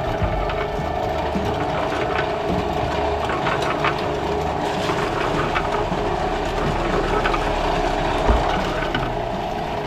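Portable concrete mixer running, its drum turning with a steady hum while wet concrete and rocks rattle and clatter inside, with one sharper knock about eight seconds in.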